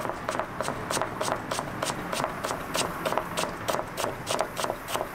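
Kitchen knife rocking through cabbage on a plastic cutting board, slicing it thin: quick, even chopping taps, about four to five a second.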